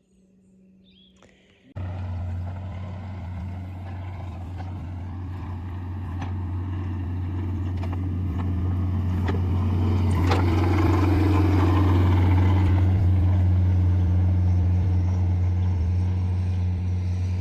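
Excavator's diesel engine running under load, starting suddenly about two seconds in as a steady low drone that swells louder toward the middle and eases a little near the end, with a few knocks from the machine's work.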